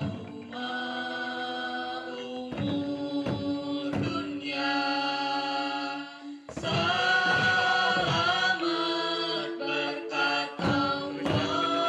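Music: voices chanting in long held tones, with sharp struck accents now and then.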